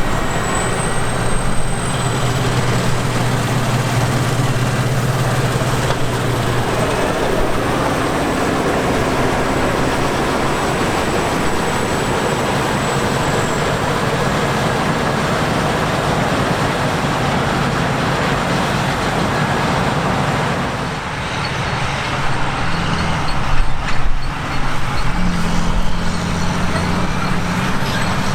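Harvest machinery at work: combine harvesters and tractors running steadily, a low engine drone under a broad rushing noise. About three-quarters of the way through the sound changes, and a different, higher engine note takes over.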